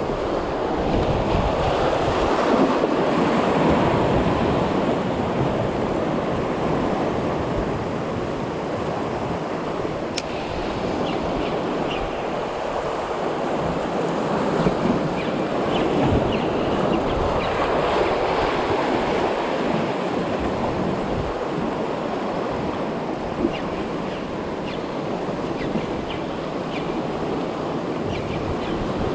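Steady rushing noise of wind and sea surf, with wind buffeting the microphone and slowly swelling and easing.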